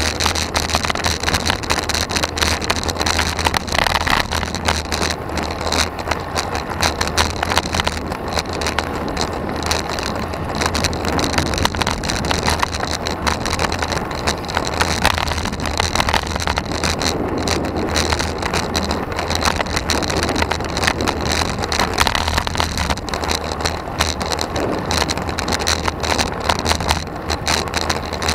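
Road bike riding on asphalt, heard from a handlebar-mounted camera: steady wind buffeting on the microphone and tyre and road noise, with many small rattles and knocks from road vibration through the mount.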